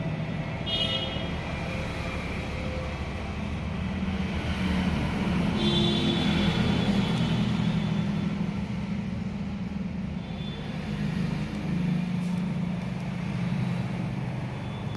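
Road traffic: a vehicle engine running steadily with a low drone, and short higher tones about a second in and again around six seconds.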